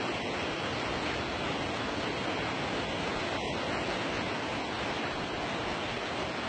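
Heavy rain pouring down outside a high-rise window: a steady, even rushing hiss.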